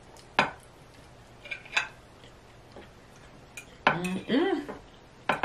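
Eating utensils clinking sharply against a plate a few times during a meal, with a short vocal sound about four seconds in.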